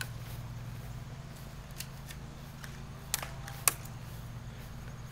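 Airsoft guns firing: four sharp, scattered shots, the loudest a little past halfway, over a steady low hum.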